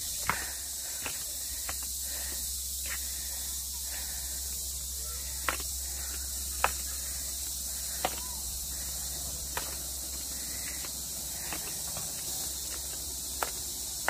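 A steady high-pitched insect chorus from the tropical forest, with occasional sharp taps of footsteps on wooden stairs.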